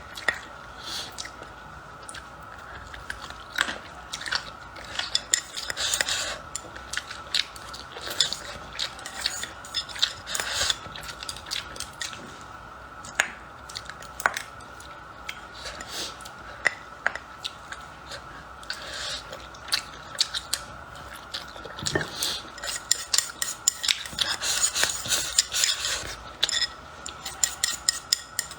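A person eating close to the microphone: chewing and biting, with utensils clinking and scraping against a bowl in irregular short clicks.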